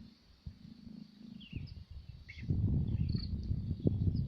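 A faint, steady insect drone with a few short bird chirps, and low rumbling noise on the microphone from about halfway through.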